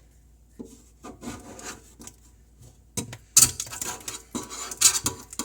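Irregular strokes of scraping and rubbing as old dried plumber's putty is cleaned off a stainless steel sink's drain opening, growing stronger about three seconds in.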